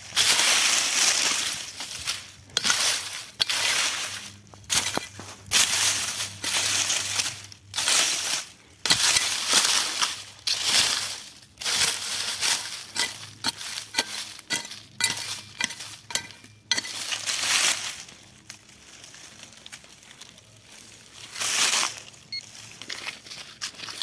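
Digging into the ground with a hand digging tool to recover a metal-detector target: irregular scraping strokes in soil, about one every one to two seconds, thinning out in the last few seconds, with a few faint electronic beeps near the end.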